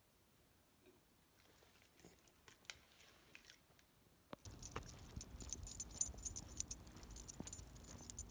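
A few faint clicks, then, about halfway through, metal tags jingling and clinking rapidly on a small dog's harness as it walks on a leash.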